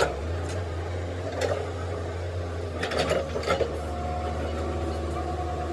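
A machine or engine running with a steady low hum, punctuated by sharp metallic clinks: one at the start, another about a second and a half in, and a quick run of them around three seconds in.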